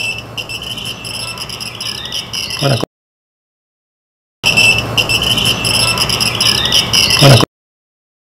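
A short outdoor recording with a steady, flickering high-pitched whine, holding a faint sound that the investigators take for a ghostly voice saying "no". It ends in a quick downward sweep and cuts to silence, then the same passage plays again and cuts off.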